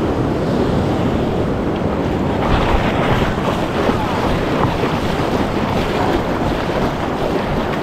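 Surf washing on the shore with wind buffeting the microphone: a steady, loud rushing that swells briefly about two and a half seconds in.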